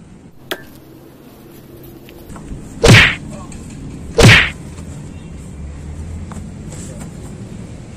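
Two loud whacks about a second and a half apart, punch sound effects for blows landing in a staged scuffle.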